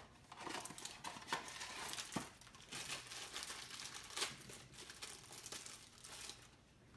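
Packaging of a Funko Mystery Minis blind box being torn open and crinkled: irregular crackling and snapping that thins out near the end as the figure is unwrapped.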